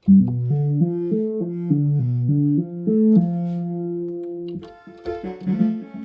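OSCar analogue synthesizer playing an arpeggiated pattern of quickly stepping notes. It holds one note for about a second and a half starting about three seconds in, then plays a brighter run of notes near the end.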